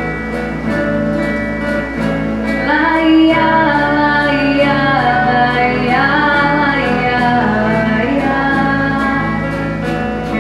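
Live acoustic band playing a slow pop ballad on acoustic guitar and a second guitar. A voice sings a wordless melodic line over the chords from about two and a half seconds in until about eight seconds.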